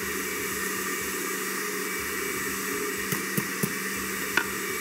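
A 750-watt countertop blender running steadily as it purées cooked corn with water. It keeps running because it would not switch off. A few light clicks come near the end.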